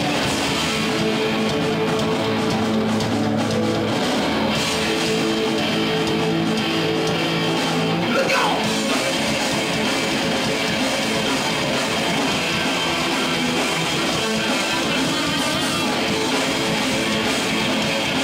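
A live skacore band playing loud: electric guitars strumming chords over bass and drums, with a short downward slide in pitch about eight seconds in.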